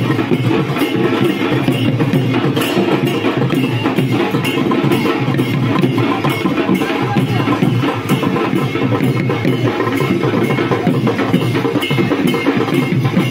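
Barrel drums beaten with sticks in a fast, steady rhythm that runs without a break.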